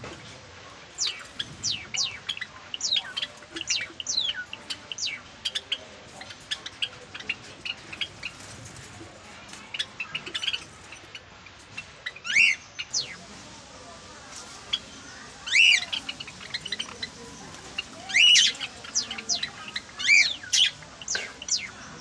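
Aviary cage birds, mostly Java sparrows, chirping: a busy run of short, sharp chip notes. From about halfway in, a few louder squawking calls stand out.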